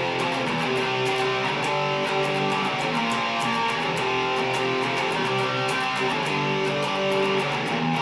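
Mexican-made Fender Stratocaster electric guitar played through distortion on its Lace Sensor bridge pickup, with sustained ringing notes and chords played continuously.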